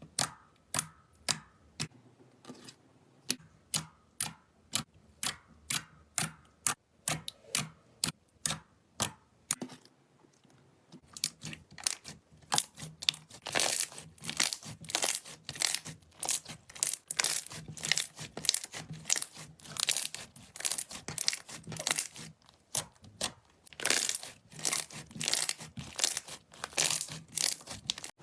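Slime being pressed and squished by hand, making sharp sticky pops about twice a second. Just before halfway the popping turns denser and louder, into a crackling run of pops.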